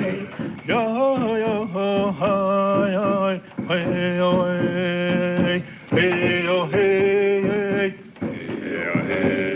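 A man's voice chanting without words, in long, mostly level held notes with short breaks between phrases.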